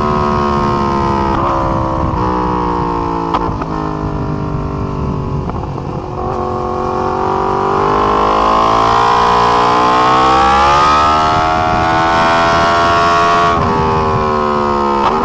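A Yamaha R1's crossplane inline-four engine heard onboard at track speed. Its revs fall over the first few seconds, broken by several quick gearshifts, then climb steadily under acceleration and hold, with another shift near the end.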